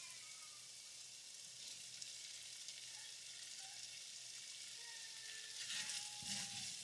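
Veggie fried rice frying in oil in a skillet: a faint, steady sizzle.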